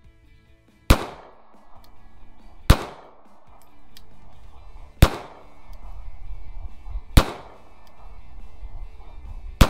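Five pistol shots from a SIG Sauer P226 in .40 S&W, fired about two seconds apart, each a sharp crack with a short echo, over background music.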